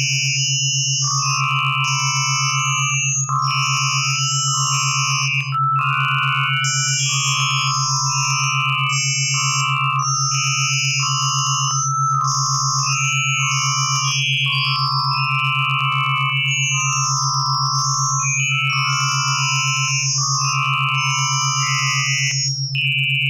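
Synthesized test audio in which a Spanish phrase is written as text into its spectrogram: a steady low buzzing tone under higher electronic tones that switch on and off with the shapes of the letters. The signal is made so the phrase appears only when the sound is drawn as a spectrogram.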